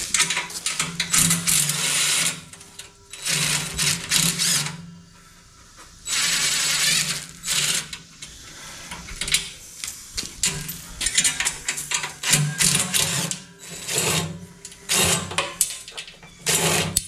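Cordless drill spinning bolts out of a steel motor frame in about six bursts of one to two seconds, its motor whirring steadily during each burst.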